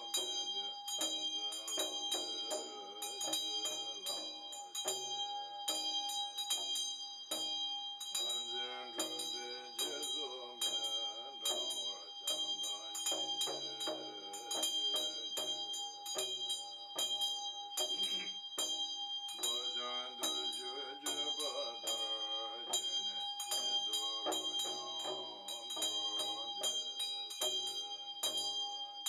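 Large Chöd damaru drum rattled in quick, uneven strokes, with a hand bell ringing steadily underneath and a man chanting.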